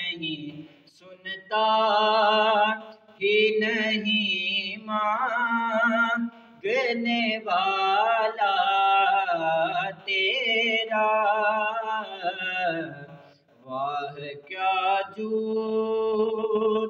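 A young man's solo voice reciting an Urdu naat unaccompanied, in drawn-out, wavering phrases with long held notes, pausing briefly between lines.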